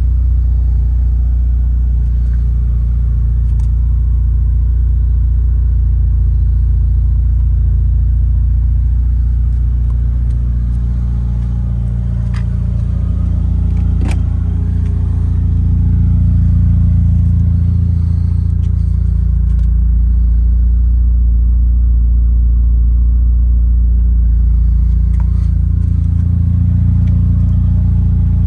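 Mitsubishi Galant VR4's turbocharged 4G63 inline-four idling steadily, with a few sharp clicks over it.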